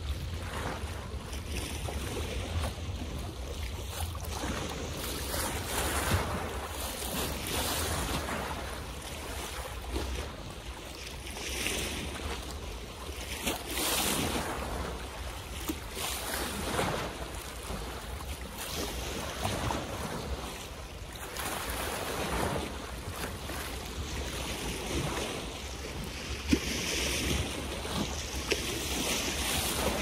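Water waves splashing and washing in, swelling every few seconds, with a steady low rumble of wind on the microphone.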